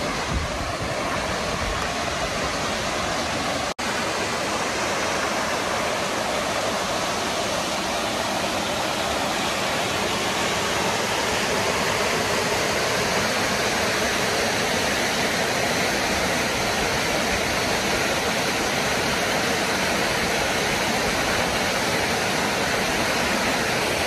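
Waterfalls pouring into a pool: a steady, even rush of falling water, broken by a split-second gap about four seconds in.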